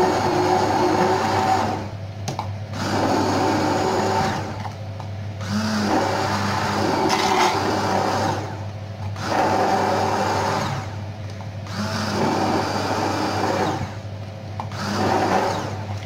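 Braun immersion hand blender puréeing cooked chicken soup vegetables in a plastic beaker to make it creamy, run in six bursts of one to three seconds with short pauses between.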